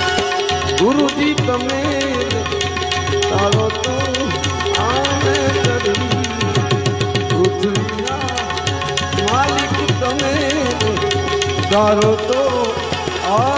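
Instrumental interlude of a live devotional bhajan: tabla playing a fast rhythm with gliding bass strokes, over steady sustained accompaniment tones.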